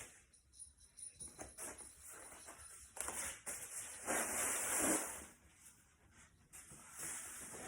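Packaging rustling and crinkling as it is handled and pulled off, in uneven bursts, loudest about four to five seconds in.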